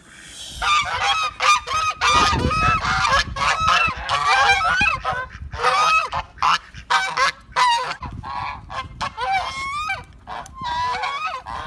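A flock of white domestic geese honking loudly, many calls overlapping in quick succession, starting about half a second in.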